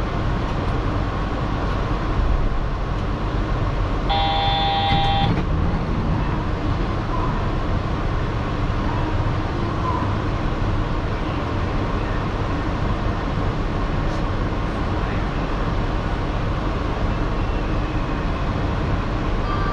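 Steady hum inside a stopped Yurikamome train car. About four seconds in, a short electronic tone sounds for about a second.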